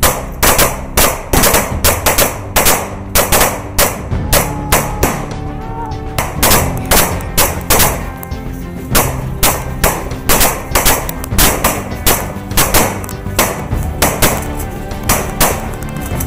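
Rifle gunfire, many shots a second in rapid, irregular strings, over background music with sustained low notes.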